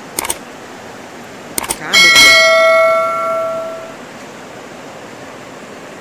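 Subscribe-button overlay sound effect: a few quick mouse clicks, then a notification bell ding about two seconds in that rings out and fades over the next two seconds. Under it runs the steady rush of a swollen, muddy river.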